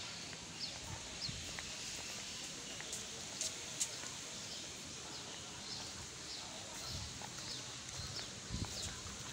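A bird repeating a short, high, slightly falling chirp every half second or so, faint over open-air background noise. A few sharp clicks and soft thumps come in between, the loudest click a little under four seconds in.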